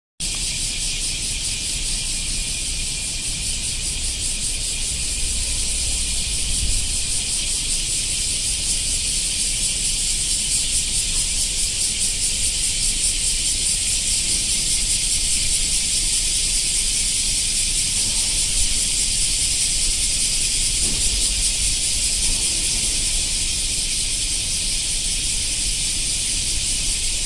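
Cicadas singing in a dense chorus: a steady, high-pitched shrill buzz with a fast pulsing texture that never lets up.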